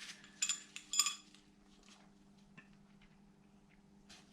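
Two light metallic clinks about half a second apart, then a few faint taps, as a crankshaft main bearing shell is handled against metal engine parts. A faint steady hum runs underneath.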